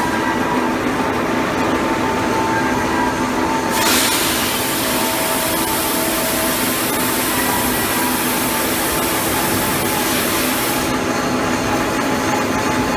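Steady industrial machinery drone with a constant hum at a pipe-welding station. About four seconds in a loud hiss starts suddenly, runs for about seven seconds, then cuts off.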